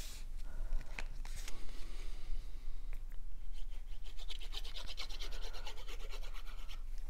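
Cardstock pieces rustling and tapping as they are handled and pressed down. About halfway in this gives way to a fast, even scratching as the tip of a fine-tip liquid glue bottle is drawn along a cardstock strip.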